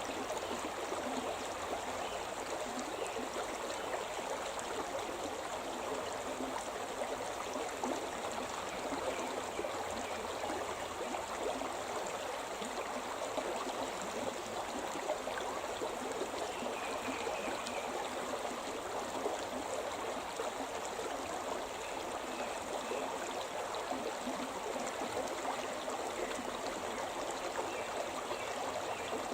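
The Shimna River, a mountain river, flowing in a steady, even rush of water.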